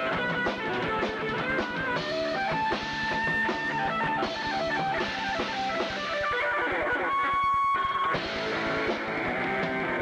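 Live rock band playing: an electric guitar plays a melodic lead line with bent notes over drums. About seven seconds in, the guitar holds one long note while the drums briefly drop away, then the band comes back in.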